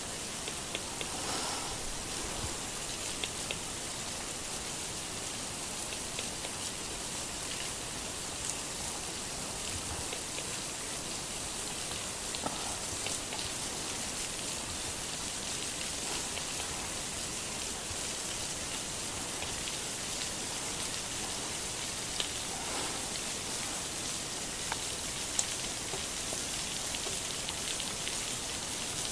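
Steady rain-like hiss, sitting mostly in the upper range, dotted with scattered faint ticks.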